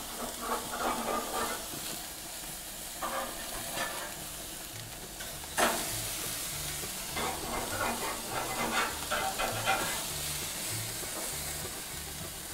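Meat skewers sizzling on a hot grill grate, with a metal spatula scraping and clinking on the grate as the skewers are loosened and turned; one sharp clink a little before the middle.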